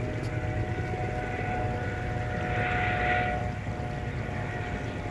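A steady engine drone with a low rumble. Its hum dies away about three and a half seconds in, just after a brief swell of hiss.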